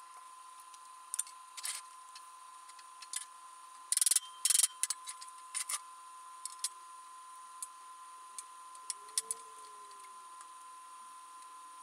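Sped-up (6x) workshop audio of steel parts being handled on a steel welding table. Scattered clicks and light knocks sit over a steady high hum, with two short, louder bursts of noise about four seconds in.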